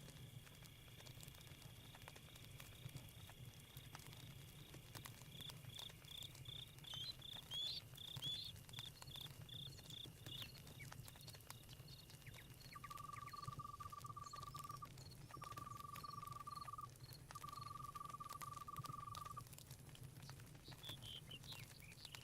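Faint night-forest ambience: crickets trilling steadily, a quick run of high chirps partway through, then three long, even-pitched calls of about two seconds each. A campfire crackles softly throughout.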